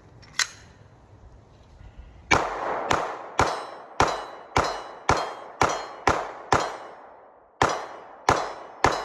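Glock 17 Gen 5 9mm pistol fired in a steady string, about two shots a second, with a metallic ringing tail after each shot. Twelve shots, with a short pause after the ninth. A single sharp click comes about half a second in.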